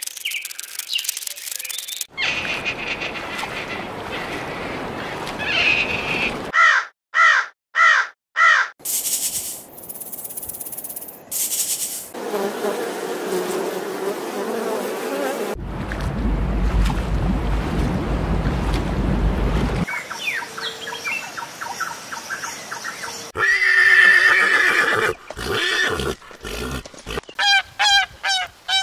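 A string of short nature-sound clips joined by abrupt cuts, ending with a domestic goose honking in a quick run of short calls.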